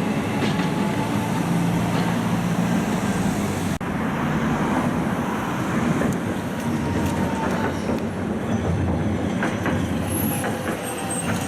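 A rail vehicle running past on the track: a steady, loud rolling rumble with faint high wheel squeal and scattered clicks from the wheels.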